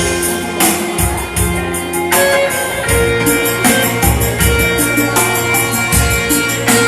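Korg Pa1X arranger keyboard playing an improvised melody, held notes changing every second or so, over a steady percussion rhythm.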